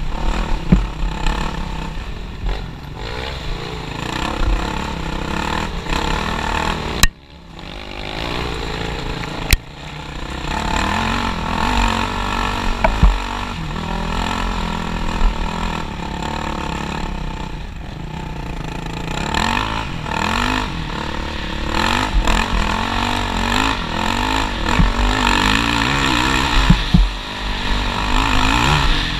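Yamaha WR450F's single-cylinder four-stroke engine running under changing throttle, its pitch rising and falling. About seven seconds in, the sound cuts out abruptly between two sharp clicks and comes back about two and a half seconds later.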